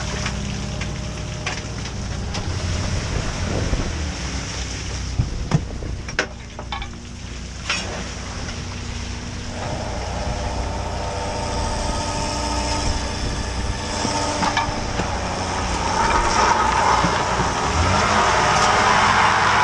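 Crab boat deck noise: the boat's engine and hydraulics run with a steady low hum under the hiss of a deck hose spraying seawater across the crab sorting area, with a few sharp knocks of gear and crabs. About halfway through, a steady higher whine joins and the noise builds toward the end as the hydraulic pot hauler runs.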